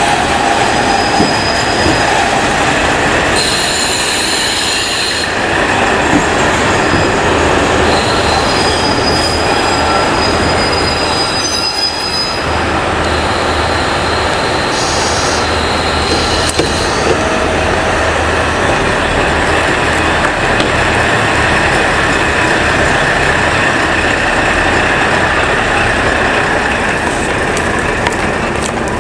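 KiHa 40 series diesel railcar train moving slowly along a station platform, its diesel engine running under a steady rumble of rail noise. High-pitched squeals come and go several times during the first half.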